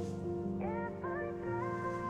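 Music: held chords with a melody line that slides up into its notes from about half a second in.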